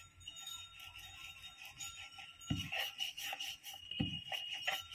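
Wooden rolling pin rolling out paratha dough on a wooden board: light clinking and jingling throughout, with two dull knocks about two and a half and four seconds in.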